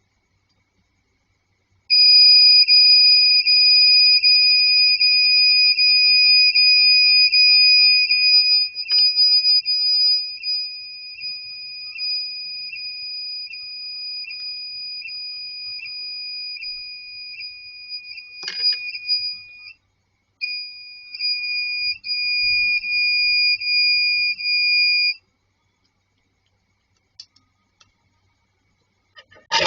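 A steady high-pitched electronic beep tone that starts about two seconds in, drops in level about nine seconds in, breaks off briefly near twenty seconds, resumes, and stops a few seconds before the end.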